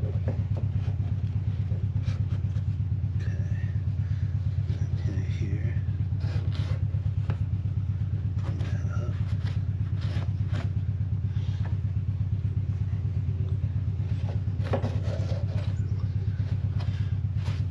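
A motor runs steadily with a low, fast-pulsing hum, like a small engine. Scattered clinks and knocks of parts being handled sound over it.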